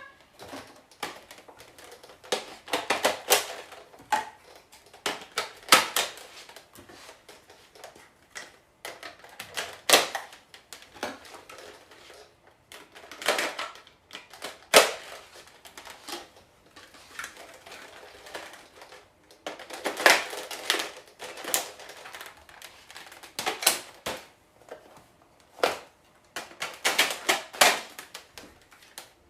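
Plastic clicking and rattling of a Nerf blaster being loaded with foam darts, in irregular clusters with a few louder sharp snaps.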